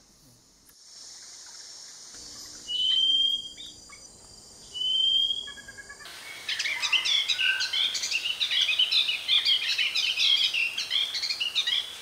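Hairy-backed bulbul calls: two thin, slightly rising whistled notes a couple of seconds apart. Then, from about halfway, a dense stream of rapid high chirps and twitters.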